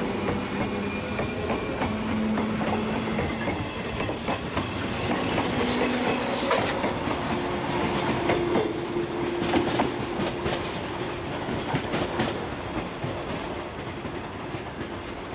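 JR 115-series electric train pulling out of a station at low speed, its wheels clicking over rail joints with a steady hum underneath. The sound grows fainter in the last few seconds as the train moves away.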